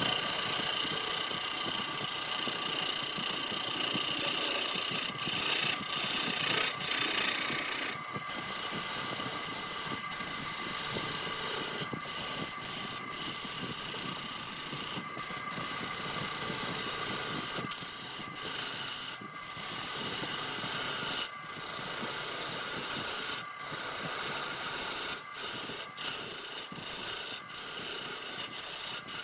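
Wood lathe running while a turning tool cuts the spinning redwood: a steady rasping hiss with a faint whine, broken by many brief gaps.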